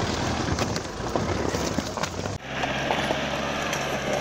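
Toyota Land Cruiser Prado 4x4 crawling over loose rocks: a low, steady engine note with the tyres crunching and stones clicking under them. The sound changes abruptly a little over halfway through.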